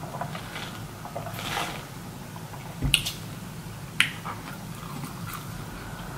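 Sipping a drink through a straw from a plastic cup, with soft mouth sounds. Then the cup is set down on the table with a knock about three seconds in, and a sharp click follows about a second later.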